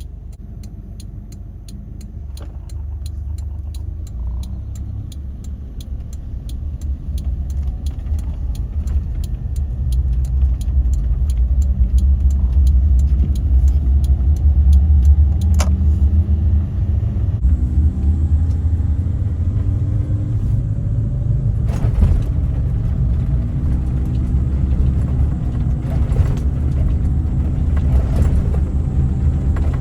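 Suzuki Jimny JA11 on the move, its small three-cylinder turbo engine and the road giving a deep, steady rumble. The engine note rises in pitch several times as it accelerates, growing louder over the first ten seconds or so.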